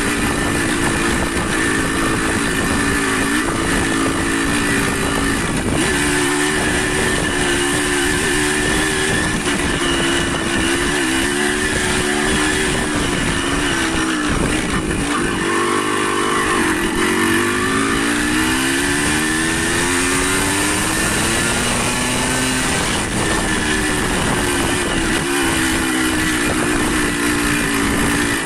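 Motorcycle engine running while being ridden, its note rising and falling with speed and dipping then climbing again about halfway through, under a steady hiss of wind and road noise.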